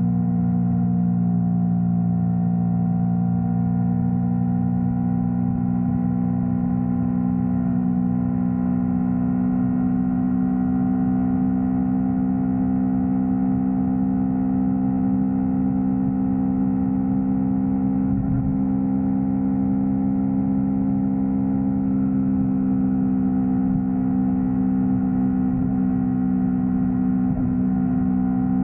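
Yamaha R3's parallel-twin engine running at a steady, nearly unchanging speed, a constant drone while cruising.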